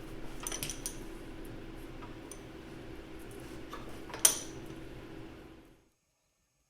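Light metallic clinks of steel parts and tools being handled during sheet-metal work, with one sharp clank a little after four seconds, over a steady hum. The sound cuts off abruptly near the end.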